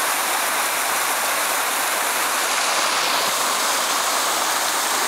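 Waterfall: water rushing down the rock face in a steady, unbroken rush.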